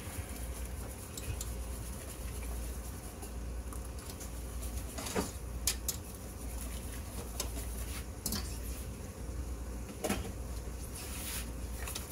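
Wire whisk stirring a sauce in a stainless steel saucepan, with a few sharp clinks of the whisk against the pan over a steady low hum.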